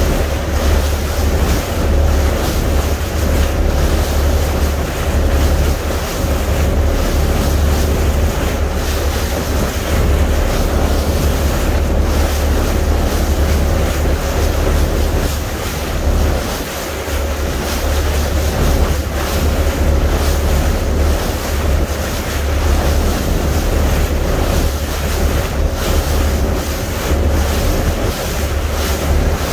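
Wind buffeting the microphone on a boat under way, over a steady rush of sea water, with a faint steady hum underneath.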